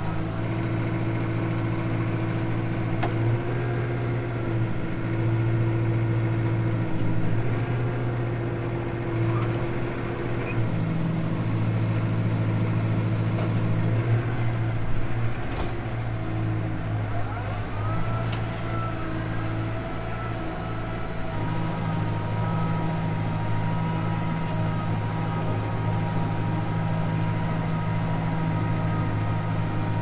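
Tractor engine running steadily under load, heard from inside the cab, while it pulls a Gehl round baler. The engine note shifts a few times, and a short rising whine comes about halfway through, with a few sharp clicks.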